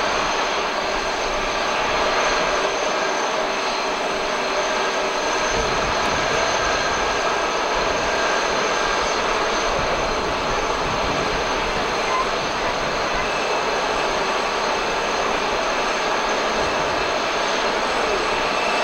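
Jet engines of an Airbus A330-223, its twin Pratt & Whitney PW4000 turbofans, running steadily: a constant rush with a high whine over it.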